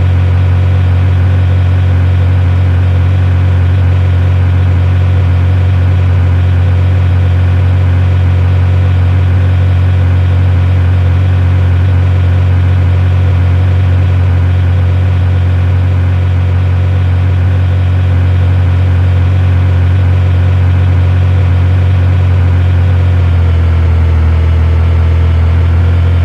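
A loud, steady low hum with a string of overtones, shifting slightly near the end.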